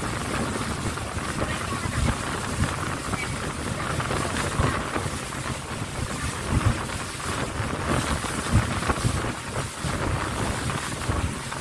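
Speedboat underway across open water: a steady rush of engine, hull and water noise, with wind buffeting the microphone in gusty low rumbles.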